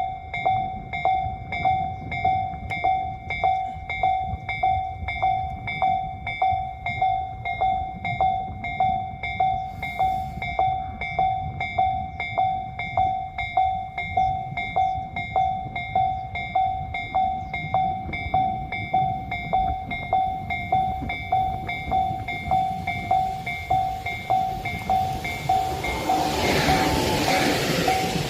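Railway level-crossing warning bell ringing in a steady, even repeating rhythm. From about 25 seconds in, the rising noise of an approaching electric train, a Yagan Railway 6050-series set, builds up under it and becomes the loudest sound.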